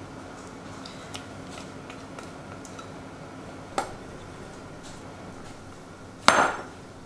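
Light clinks and a sharp tap of a glass mixing bowl against a metal mesh sieve as dry flour mixture is tipped in, then a loud clack with a short ring near the end as the glass bowl is set down on the counter.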